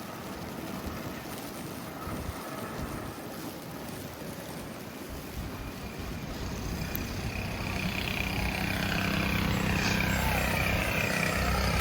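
Street noise with a motor vehicle approaching: an engine hum and rushing tyre noise grow steadily louder through the second half.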